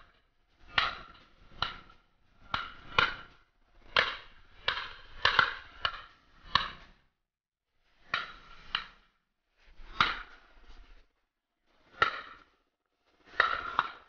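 A rapid run of shotgun shots, about sixteen in fourteen seconds, several in quick pairs, each a sharp crack with a short ringing tail.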